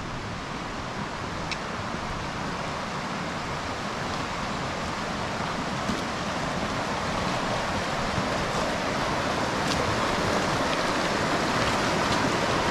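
Rushing water of a mountain river, a steady rush that grows gradually louder as the microphone nears it.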